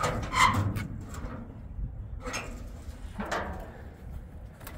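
Sheet-metal hood of a 5-ton military 6x6 truck being pushed up and open by hand: a few short scrapes and clunks of the hood and its hinges, with a small click near the end.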